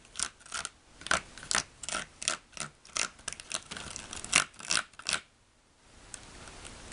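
Small plastic spoon clicking and scraping against a plastic candy-kit tray in quick, irregular taps while stirring a paste in one of its wells. The taps stop about five seconds in.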